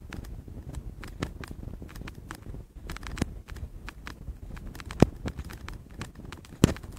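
Low rumble of wind buffeting the phone's microphone, with scattered sharp clicks and knocks from handling, the loudest about five seconds in and again near the end.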